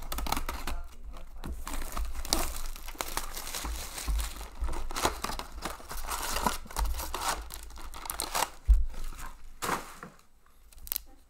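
Plastic shrink wrap being slit and torn off a cardboard trading-card hobby box, crinkling and tearing, then cardboard and foil packs rustling as the box is opened and emptied. One thump comes near the end, and the handling quiets about a second before the end.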